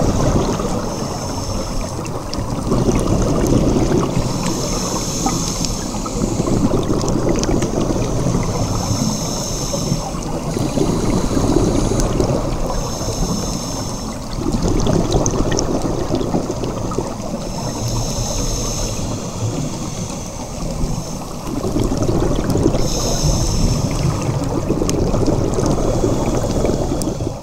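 Scuba diver breathing through a regulator underwater: every three to four seconds a hissing inhale alternates with the bubbling rumble of the exhale.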